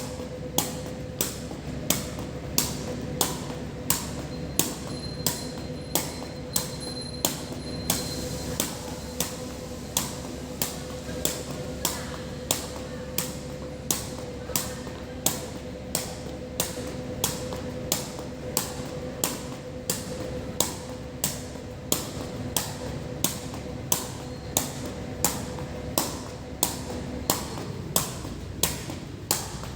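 Sharp taps at a very even pace, a little under two a second, over a steady low hum and a faint hiss.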